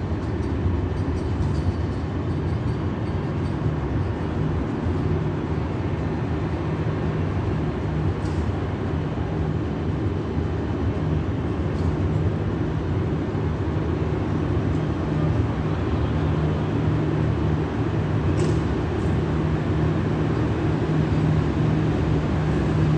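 KZ4AC electric locomotive running under way with a train: a steady low hum and rumble, with a few faint clicks.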